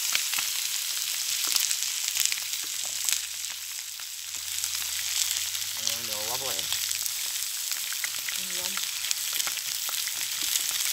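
Chili-marinated chicken thighs sizzling in a wide, shallow pan over a wood campfire: a steady frying hiss with many small pops and spits, as more pieces are laid into the hot pan.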